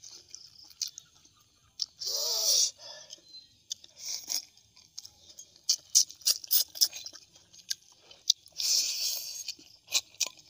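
Close-miked eating sounds from a man sucking and chewing the meat off boiled armored catfish (pleco): a run of wet lip smacks and mouth clicks, with two louder sucking slurps, one about two seconds in and one near nine seconds.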